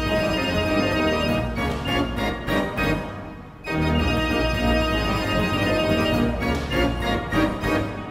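Organ music playing a tune of sustained chords over a strong bass, with a short break about three seconds in.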